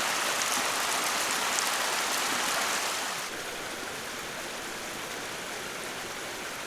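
Mountain stream running, a steady rush of water that drops to a lower level about three seconds in.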